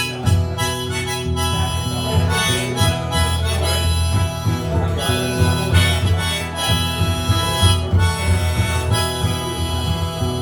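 Instrumental intro to an old-time country song: harmonica playing held melody notes over a guitar accompaniment.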